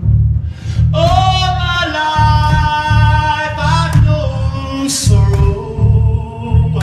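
Live band music: a singer holds long, sustained notes over loud, booming bass that pulses in heavy blocks.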